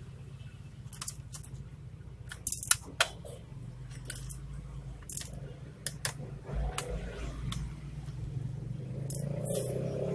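Irregular small clicks and taps of a screwdriver, screws and plastic parts being handled while a laptop is taken apart, over a steady low hum.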